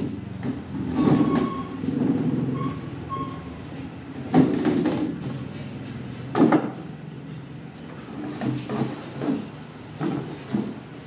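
Massey Ferguson 1035 DI engine block being turned over by hand on a metal stand: metal scraping and rumbling, with two sharp clunks about four and six and a half seconds in and lighter knocks near the end.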